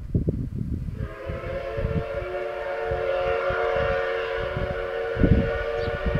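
Steam locomotive's whistle blowing one long, steady chord of several tones for about five seconds, starting about a second in: the departure whistle. Wind rumbles on the microphone underneath.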